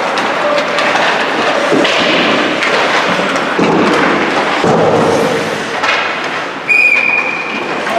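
Ice hockey practice on the rink: skates scraping across the ice with pucks and sticks knocking against the boards. Near the end a whistle blows one steady blast of about a second.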